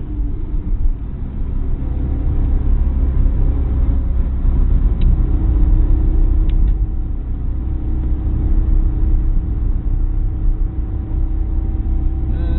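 Opel Corsa at speed, heard from inside the cabin: a heavy, steady rumble of engine, tyres and wind. The engine note drops at the start, then holds a steady pitch through the second half.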